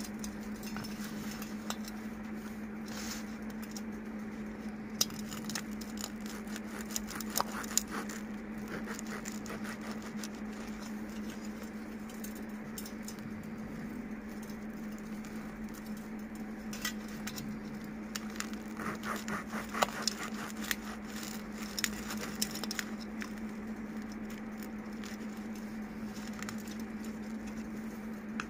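Slices of bread being torn and broken apart by hand, giving scattered light crackles in a few clusters, over a steady low hum.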